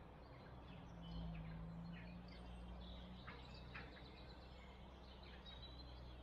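Faint birdsong: scattered short, high chirps from small birds, with a faint low hum under them in the first half.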